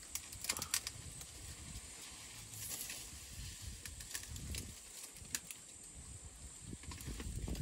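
An African elephant grazing: grass and plant stems crackling and snapping in short, irregular bursts as it tears them up, over a low rumbling.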